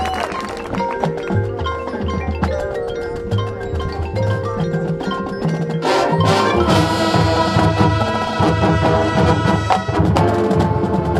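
High school marching band playing its field show: the front ensemble's mallet percussion rings over low bass notes that step from one pitch to the next. About six seconds in a sharp hit lands and the full band joins, fuller and louder.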